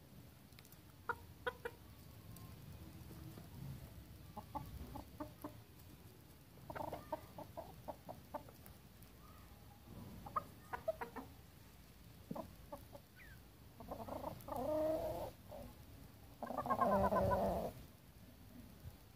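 Roosters clucking in several bursts, the loudest near the end, with scattered short sharp taps of beaks pecking.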